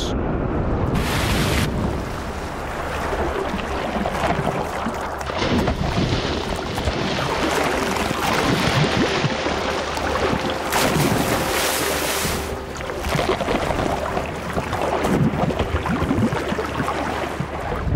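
Water churning and splashing as a great white shark thrashes at the surface, a continuous rushing noise with louder surges about a second in and again around eleven seconds in.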